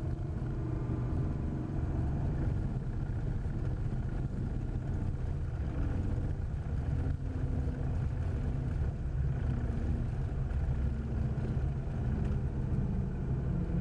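Cessna 400's turbocharged six-cylinder engine heard from inside the cockpit as a steady low drone, after touchdown on the landing rollout.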